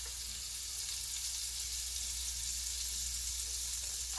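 Butter melting and sizzling with minced garlic in a nonstick pot: a steady, even hiss.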